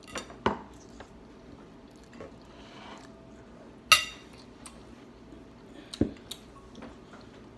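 Metal cutlery clinking a few times against a ceramic plate and bowl. The loudest clink, with a brief ring, comes about halfway through.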